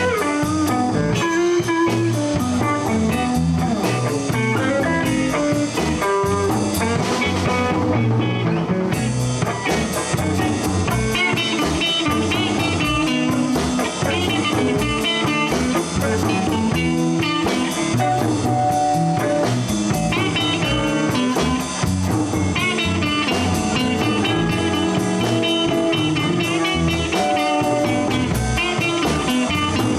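Blues band playing an instrumental break: a guitar plays quick lead lines over bass and a drum kit.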